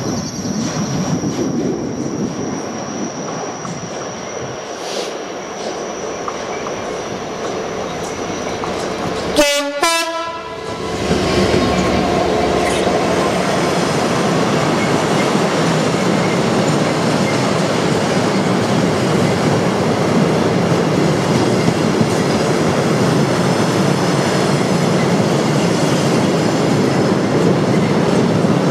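A Class 66 diesel freight locomotive approaching with a rising rumble and giving two short blasts on its horn in quick succession about nine seconds in. As it passes, a long rake of double-deck car-carrier wagons rolls by behind it with steady, loud wheel clatter.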